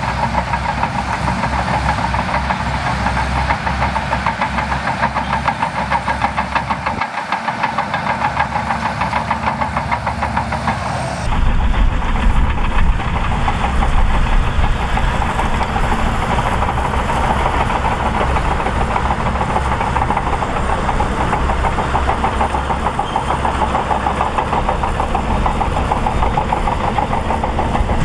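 Shantui DH17C2 bulldozer's diesel engine running hard with a fast, even pulsing, with the clatter of the machine working. About eleven seconds in the sound changes abruptly and becomes louder and deeper.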